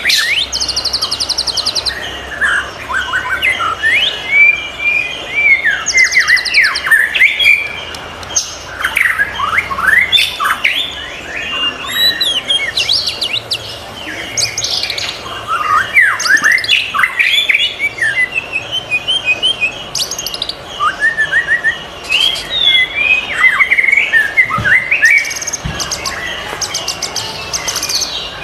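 White-rumped shama (murai batu) singing a continuous, varied run of loud whistled phrases that sweep up and down in pitch, broken now and then by short, fast buzzy trills.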